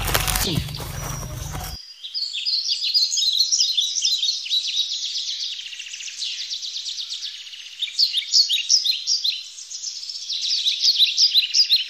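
Many birds chirping in a dense chorus of quick, short, high calls. A fuller, deeper background sound under them for the first couple of seconds drops out abruptly, leaving only the chirping.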